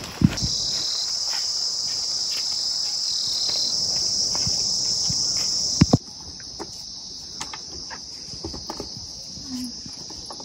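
A steady, high-pitched chorus of insects calling, loud for the first six seconds and then dropping abruptly to a quieter level. A few light clicks and taps sound over it, with a sharper knock just after the start and another just before the drop.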